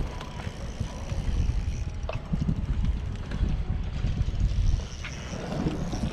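Wind buffeting the microphone in gusts, with a couple of faint clicks.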